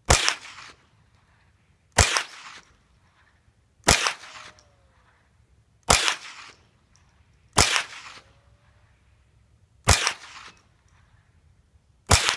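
Marlin 795 semi-automatic .22 LR rifle fired seven times at a slow, steady pace, about one shot every two seconds. Each is a sharp crack followed by a short fading echo.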